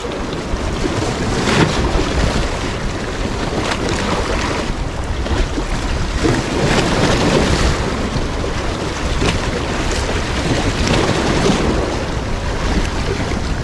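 Wind buffeting the microphone over waves washing against the rocks of a breakwater, a steady rushing noise with a few stronger gusts.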